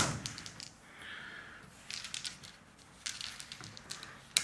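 Light clicks and rattles of dice being gathered and rolled on a tabletop wargame table, in small clusters rather than a steady sound.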